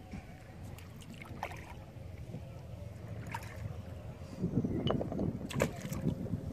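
Wooden canoe working on the river: water lapping and paddling under a steady low rumble, with scattered light knocks and clicks as a monofilament gill net and its plastic-bottle floats are paid out over the gunwale. The rustling and knocking grow louder and denser from about four and a half to six seconds in.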